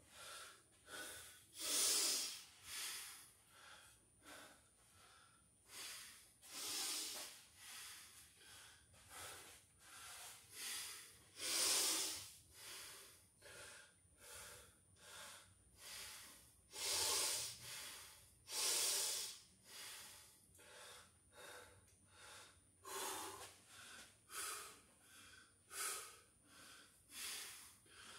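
A man breathing hard, recovering after a set of burpees: a steady run of deep in-and-out breaths about every second or two, a few of them louder gasps.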